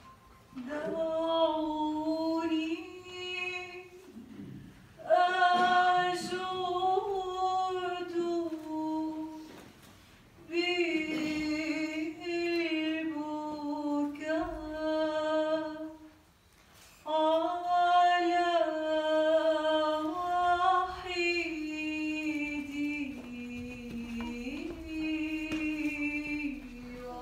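A woman's voice singing a slow hymn melody unaccompanied, in four long, held phrases with short breaks for breath between them.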